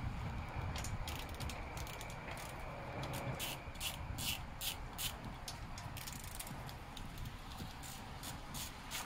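Hand ratchet working a skid plate bolt under a motorcycle's engine, its pawl clicking in short repeated bursts with each back-stroke, at times about three a second.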